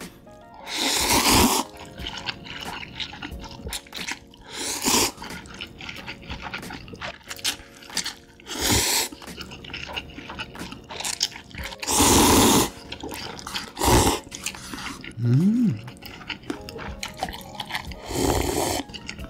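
Close-up slurping and chewing of cream buldak fried noodles from a paper cup: about six loud slurps, two of them long, with wet chewing and mouth clicks between. Midway there is a short rising vocal sound.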